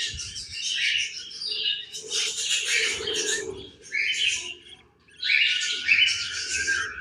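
Baby budgerigars (budgie chicks) chirping in a dense stream of high, overlapping chirps, with a brief pause about five seconds in.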